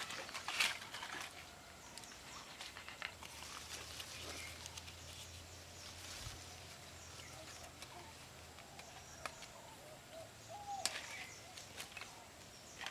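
Fresh leaves being plucked from a shrub by hand, with a few sharp snaps of leaf stalks and a soft rustle of foliage. Birds chirp faintly in the background.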